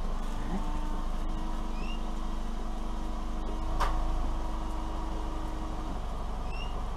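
Kia Rio's rear screen washer pump running with a steady whine for about six seconds, then stopping, over the low steady hum of the car idling. The washer is working again after repair. A sharp click comes about four seconds in, and a bird chirps twice.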